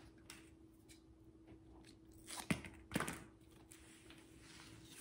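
Duct tape being pulled off the roll and wrapped around the handle of a wire coat-hanger racket: faint handling and rustling, with two short crackly rips a little past halfway and a softer rasp near the end.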